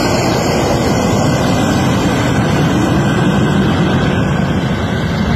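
Fighter jet engine of the record boat Spirit of Australia 2 running at speed during a run on the water: a loud, steady rush of noise.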